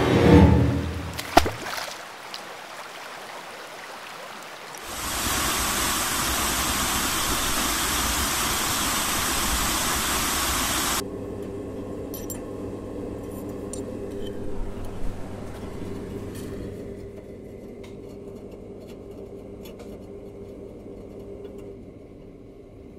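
A loud sound dies away over the first two seconds, with a sharp click. Then a front-loading washing machine drum turns with water sloshing, a steady rushing noise that stops abruptly about eleven seconds in. It gives way to the steady hum of laundry machines, with a few faint knocks.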